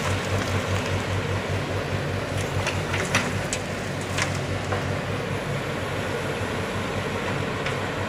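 Engine of a JG100S wheeled mini excavator running steadily while working, with a pulsing low hum. A few sharp knocks come a little before the middle, as soil and debris drop from the bucket into the dump truck's bed.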